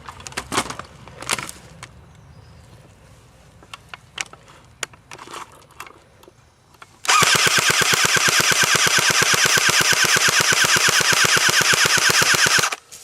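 Airsoft gun firing one long full-auto burst of nearly six seconds, a very fast even rattle that starts about seven seconds in and cuts off abruptly. Scattered light clicks and rustles come before it.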